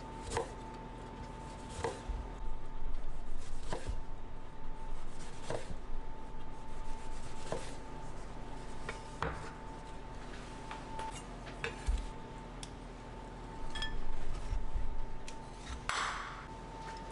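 Chef's knife slicing limes and a lemon into rounds on a wooden cutting board, each cut ending in a knock of the blade on the board about every two seconds. A faint steady high hum runs underneath, and a short scrape comes near the end.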